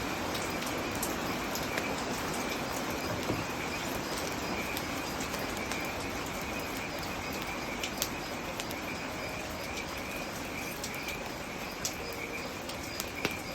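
Campfire crackling, with occasional sharp pops over a steady hiss of rain.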